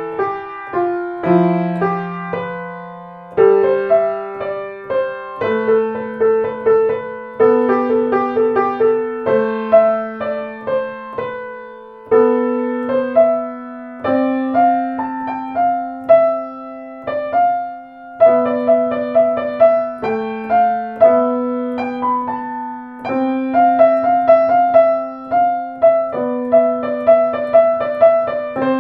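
Solo piano music played on a Blüthner grand piano: a melody of struck notes over held lower notes.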